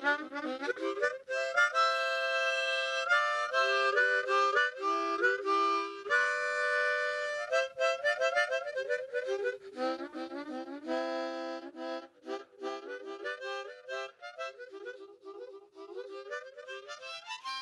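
Background music: a solo wind-instrument tune, several notes sounding together as chords, with held notes and quick runs of notes.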